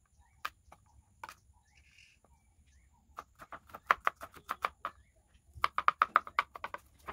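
Large kitchen knife chopping garlic cloves on a wooden cutting board: a few single taps at first, then quick runs of chopping strokes, several a second, from about three seconds in.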